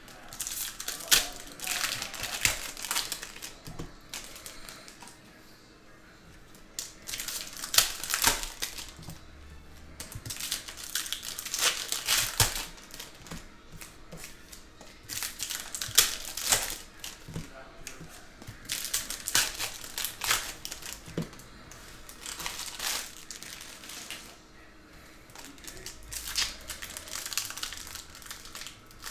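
Hockey card pack wrappers crinkling and tearing as packs are ripped open and cards handled, in about seven short bursts of crinkling separated by quieter gaps.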